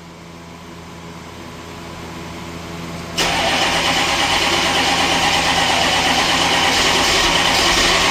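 A 6.5L V8 diesel engine that is hard to start cold is cranked again after stalling. It catches suddenly about three seconds in and then runs loudly and unevenly.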